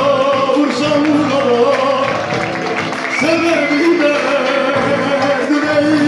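Singing of a Turkish folk song (türkü) with instrumental accompaniment, a single melodic vocal line wavering and ornamented over steady sustained instrument tones.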